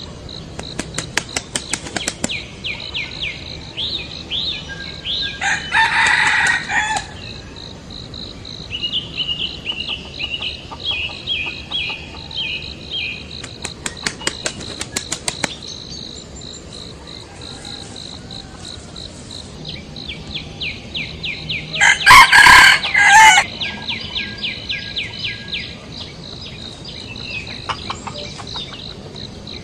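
Birds calling: two loud calls of about a second each, one about six seconds in and one about two-thirds of the way through, over runs of fast repeated chirps and a steady, high pulsing trill.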